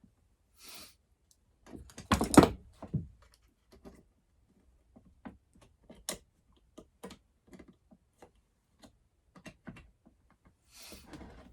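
Scattered clicks and knocks of chainsaw handlebar parts being handled and fitted together, with a cluster of louder knocks about two seconds in.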